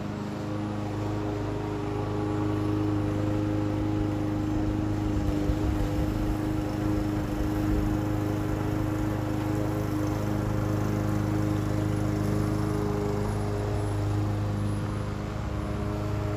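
Lawn mower engine running steadily at a constant speed.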